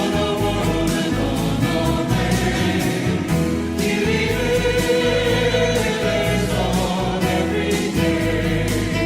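Choir singing a hymn with accompaniment, sustained chords over a deep bass.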